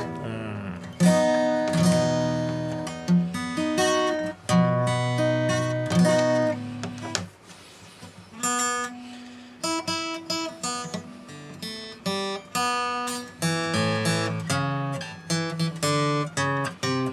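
Steel-string acoustic guitar with freshly fitted light-gauge strings, chords picked and strummed with a thumb pick about once a second, with a brief quieter lull about halfway through.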